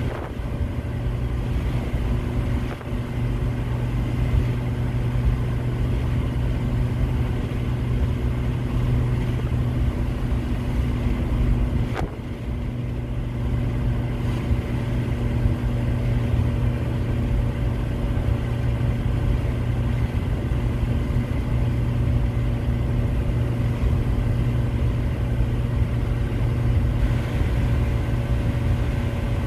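Volkswagen Eurovan cruising at highway speed, heard from inside the cabin: a steady drone of engine and tyres on the roadway, with one short click about twelve seconds in.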